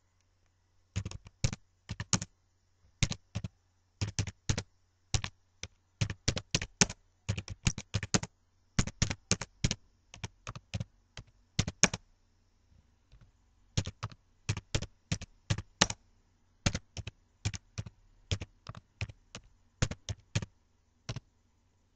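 Computer keyboard being typed on: quick, uneven runs of key clicks, with a short pause about halfway through.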